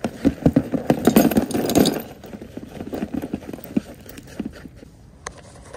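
A clatter of small metal finds (coins, rings, pull tabs) being tipped out and spread by hand. It is busiest in the first two seconds, then thins to scattered clicks, with one sharp click near the end.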